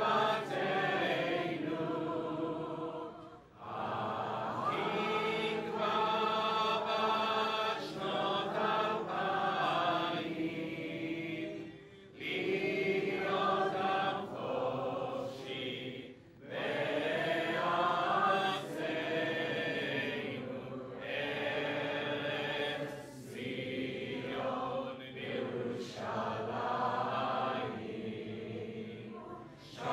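Slow, chant-like singing, sustained voices moving through long phrases with short pauses between them.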